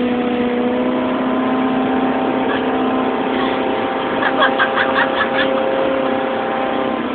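Motorboat engine running steadily at speed, under a constant rush of wind and water. A short run of voices cuts in about four seconds in.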